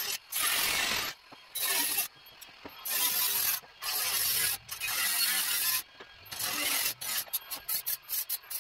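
Arc welding on sheet steel in repeated bursts, each about half a second to a second long with abrupt starts and stops, then a quick run of very short tack bursts near the end.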